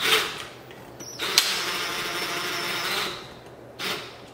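Cordless impact driver driving screws into the wall: a short burst, then a steady run of about two seconds, then a brief final burst.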